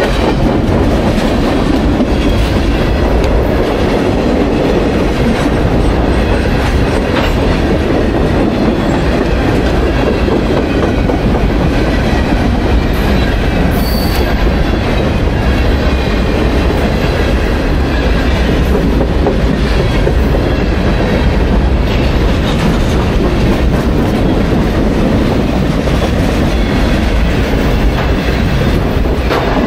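Freight train rolling by, with loud steady wheel-and-rail noise and a faint high wheel squeal.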